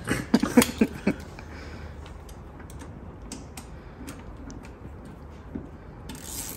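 Hand tools clicking and tapping against metal under the car's underbody: a quick cluster of sharp clicks in the first second, then sparse light ticks, with a short rustle near the end.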